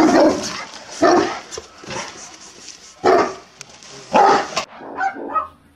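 Large Romanian shepherd dogs barking in single loud barks about once a second, fading near the end: guard barking at strangers.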